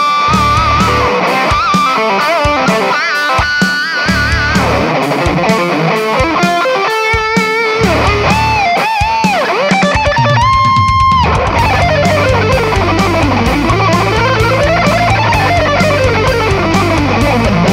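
Distorted ESP electric guitar playing a fast heavy-metal lead over a backing track with a steady beat and bass. Just past the middle a high note is held for about a second, then the line sweeps down and back up in pitch several times.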